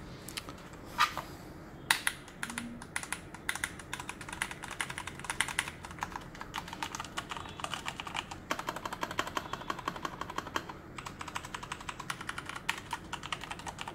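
Leopold FC660M mechanical keyboard with Cherry MX Brown switches being typed on: rapid runs of key presses in flurries, with a couple of louder single key strikes in the first two seconds. The keys sound less noisy and less clicky, as brown switches are.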